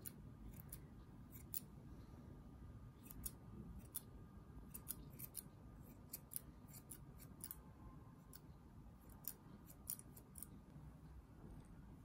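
Curved grooming scissors trimming a Bichon Frisé's fur: faint, crisp snips in short, irregular runs.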